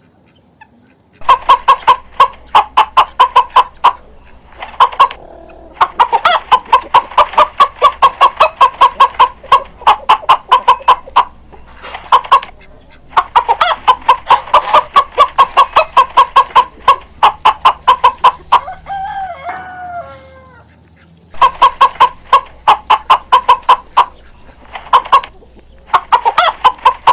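Chickens clucking in fast, even runs of sharp calls, broken by short pauses, with a rooster crowing once about two-thirds of the way through.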